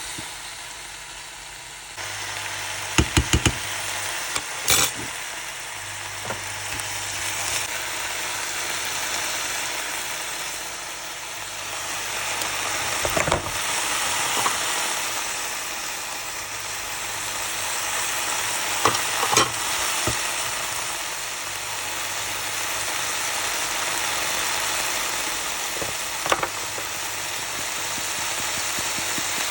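Food sizzling steadily in a hot pan while it is stirred, with a few sharp clinks of the spoon or spatula against the pan.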